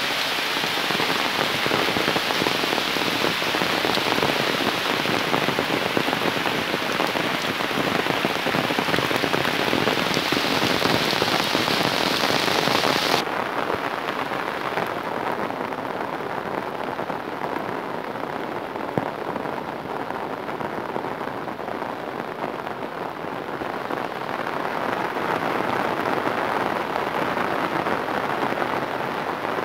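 Heavy rain pouring onto floodwater, a dense, steady hiss. A little before halfway it turns abruptly duller.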